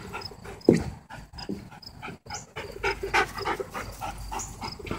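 A dog panting in quick, repeated short breaths, with one brief louder sound less than a second in.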